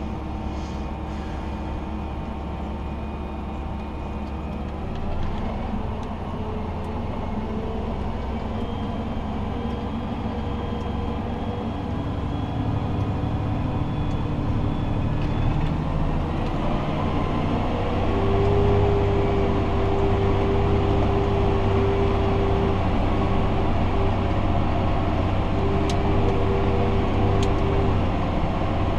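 Fendt 828 Vario tractor's six-cylinder diesel running under load, heard from inside the cab, with the Streumaster compost spreader working behind it. The sound grows louder past the middle, and a steady whine joins in during the last third.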